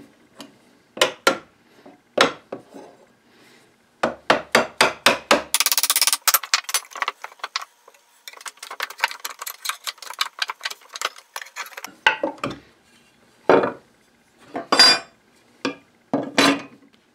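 Wooden mallet knocking on the wooden tie piece between the workbench's vise rails to drive it loose: two single blows, then a quick run of about six blows around four seconds in. A dense stretch of scraping clatter follows as the piece is worked free with a chisel, and there are scattered knocks of wood on wood near the end.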